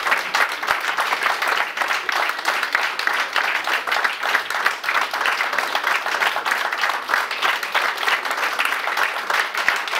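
Steady applause: many people clapping at once for a theatre curtain call.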